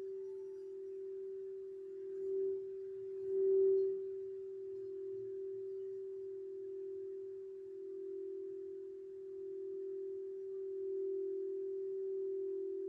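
Singing bowl ringing one long, steady tone with a slow pulsing wobble, swelling briefly twice a few seconds in.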